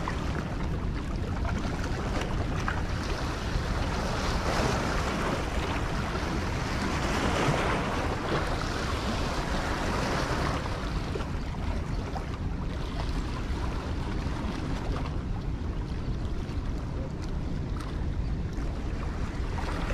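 Steady rushing water with wind buffeting the microphone, swelling a little about a third of the way through and then easing.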